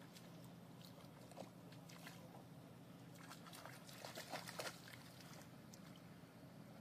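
Faint splashing and sloshing of a dog wading through shallow water among rocks, with a short run of louder splashes a little past the middle, over a faint steady hum.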